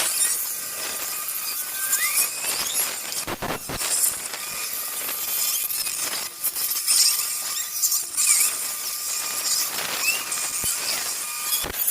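Metal lathe cutting steel: the tool gives a steady, high-pitched scraping with short squeals, and there are a couple of brief knocks.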